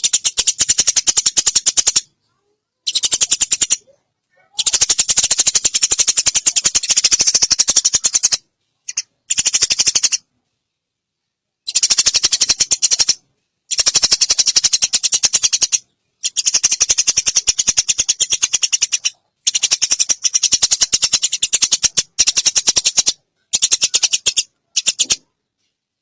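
Eurasian tree sparrow (burung gereja) giving rapid, high chattering calls in bursts of one to four seconds, broken by short, abruptly silent gaps.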